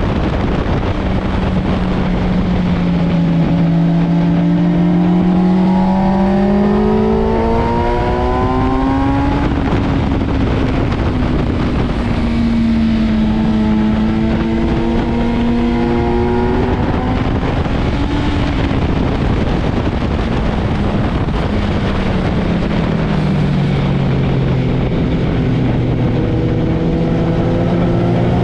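Sport motorcycle engine at track speed, its pitch climbing in two long pulls as it accelerates, then falling and starting to climb again near the end, over a steady rush of noise.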